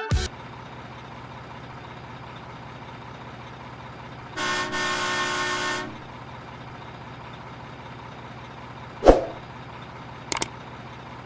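A truck horn sounds once for about a second and a half over a steady low hum. A sharp knock follows about two seconds before the end.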